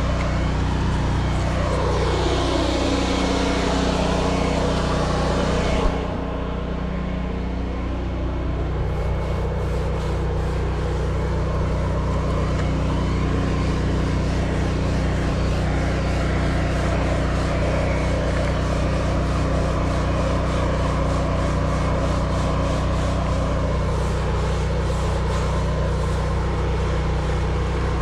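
Pressure washer running steadily, its motor humming under the hiss of the water spray; the hiss drops sharply about six seconds in.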